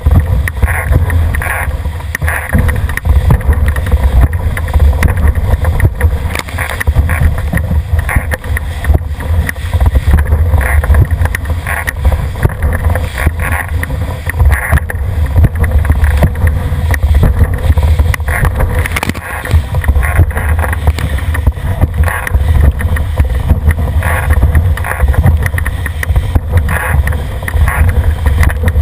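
Wind buffeting the microphone of a boat-mounted camera, over the steady rush of water and repeated splashes of spray along a Cherub dinghy's hull as it sails fast downwind.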